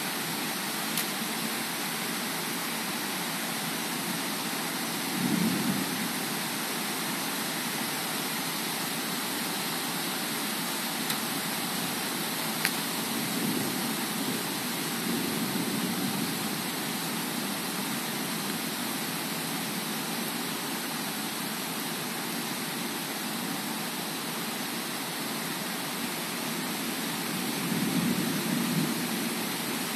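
Heavy rain falling steadily in a thunderstorm, a dense even hiss, with gusts of wind swelling up a few times, the strongest about five seconds in and near the end.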